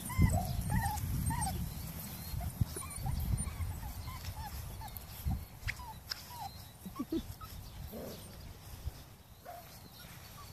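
Norwegian Buhund puppies, about five weeks old, making short high whimpers and squeaky yips. The calls are thickest in the first couple of seconds and come more sparsely after that.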